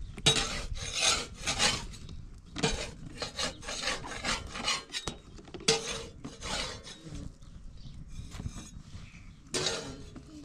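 Rasping, scraping strokes in runs of about three a second, with short pauses between the runs.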